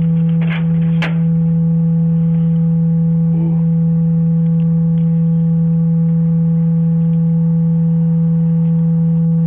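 A loud, steady electronic drone held at one low pitch with fainter higher tones above it, never wavering, with a few sharp clicks in the first second. It is heard through a doorbell camera's microphone, which cuts off all the treble.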